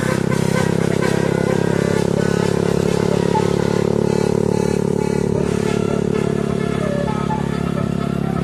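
Steady drone of a vehicle engine on the move, even and unbroken, with faint music over it.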